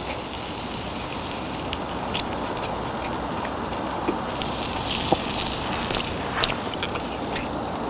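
Beef ribeye sizzling steadily in a hot pan, with a few light clicks about halfway through.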